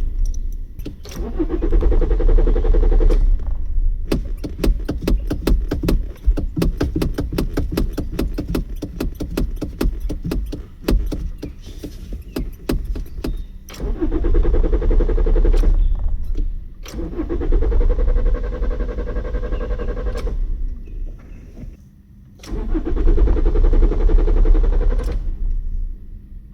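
An old car's engine being cranked by its starter again and again without starting: several separate cranking attempts, one of them running about nine seconds with an even rapid pulse, with short pauses between tries.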